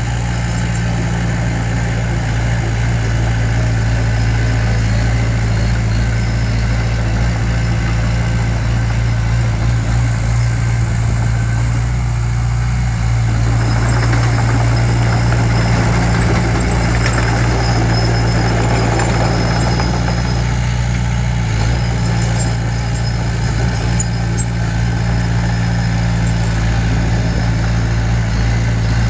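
Diesel engine of a small construction machine running steadily, with a rougher, noisier stretch in the middle.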